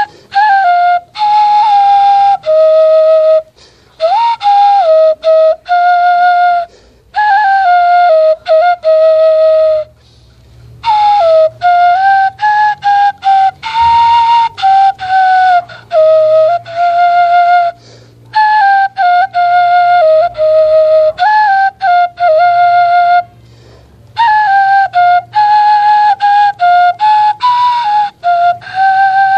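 Homemade bamboo native-style flute playing a slow melody of separated notes with small slides between them, in phrases broken by short pauses.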